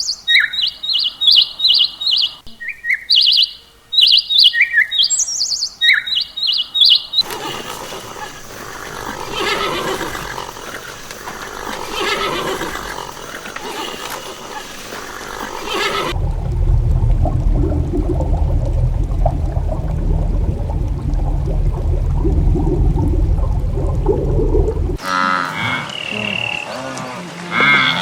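Several farm-animal recordings in turn. First come rapid, repeated high bird chirps for about seven seconds, then mixed animal noises, then a stretch over a strong low rumble. Near the end come bleats.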